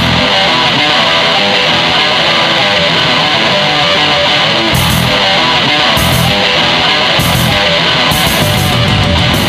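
Loud rock music driven by electric guitar.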